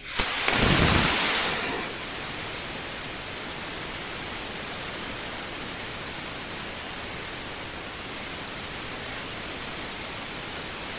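CUT50 Tenya air plasma cutter torch firing and piercing a hole in a steel plate. It starts with a sudden loud hiss, louder for the first second and a half, then settles into a steady hissing cut. The torch is started tilted at an angle, the correct way to pierce without burning out the tip.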